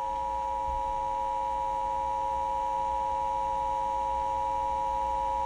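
Emergency Alert System attention signal: the steady two-tone alarm that announces an emergency broadcast, here ahead of a tornado warning. It is held without a break, over a lower steady hum.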